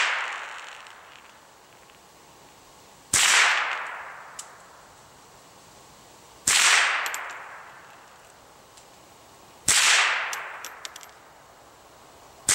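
Marlin Model 60 semi-automatic .22 LR rifle firing four single shots about three seconds apart, the last just at the end. Each crack trails off over about a second and a half.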